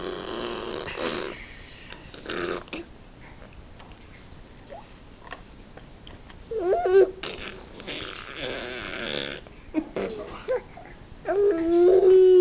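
Odd vocal noises in separate bursts: breathy, hissy bursts near the start and in the middle, and squealing cries whose pitch wavers, one about six and a half seconds in and the loudest near the end.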